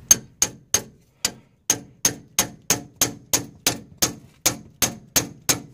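A hammer clanging repeatedly on a steel pickle fork wedged under a truck's sway bar end link, about sixteen sharp ringing strikes at roughly three a second. The rusted end link does not come free.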